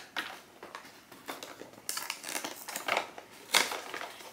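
Packaging being opened and handled: rustling and crinkling with small clicks and taps, and a few sharper clicks in the second half, as a pack of tiny instant-coffee cups is unwrapped.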